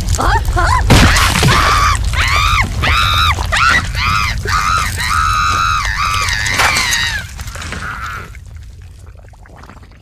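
A cartoon anteater screaming and wailing in a high, strained voice over a busy layer of sound effects, with a sharp hit about a second in. The cries fade away near the end.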